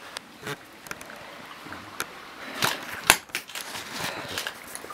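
Scattered knocks, clicks and scrapes of footsteps and handling as people move through an abandoned house, a few per second, with the two loudest knocks about half a second apart near the middle.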